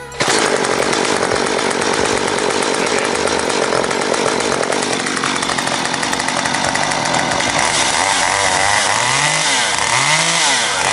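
Small Stihl top-handle two-stroke chainsaw pull-started, catching straight away and running loudly and steadily. Near the end the throttle is blipped, and the engine revs up and drops back about once a second.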